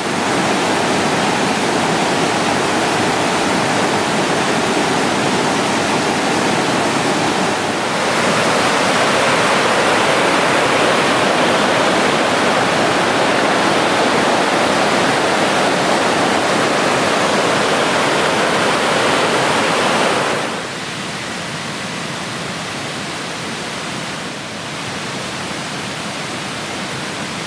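Rushing river water, a steady noise that gets louder about eight seconds in and drops to a quieter level about twenty seconds in.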